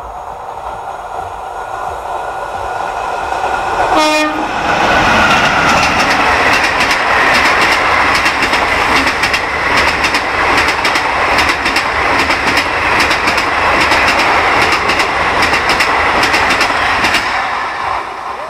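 An express train hauled by a WAP-1 electric locomotive approaches at speed and sounds a short horn blast about four seconds in. Its coaches then rush past with a loud, rapid clatter of wheels over the rail joints, fading near the end.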